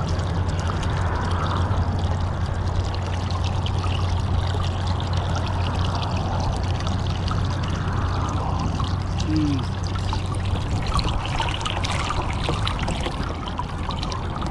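Water pouring steadily out of a kayak that has flooded through a leak, with a steady low hum beneath that stops about three-quarters of the way through.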